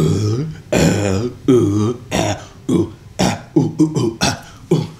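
A man's wordless vocal sounds: three drawn-out 'ooh'-like calls, then a quicker run of short vocal sounds about twice a second.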